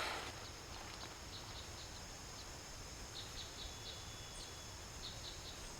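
Faint outdoor ambience: a steady high insect drone and a low hiss, with short high chirps repeating irregularly.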